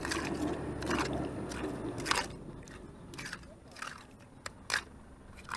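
A small metal hand tool digging and scraping into wet, gritty mud: a run of irregular crunching scrapes, coming thicker in the first couple of seconds and more spaced out after.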